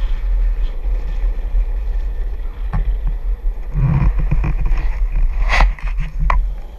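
Wind rumbling steadily on a GoPro's microphone during a ride along a road. In the last couple of seconds a few sharp knocks and clicks come as the camera is handled and turned.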